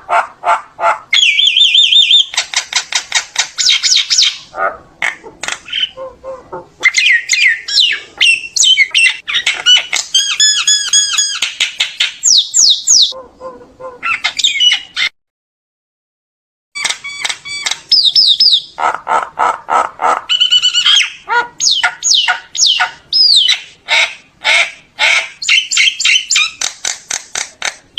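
Common myna singing: fast runs of harsh chattering and clicking notes mixed with clear whistles. The song cuts off dead for about a second and a half a little past halfway, then resumes.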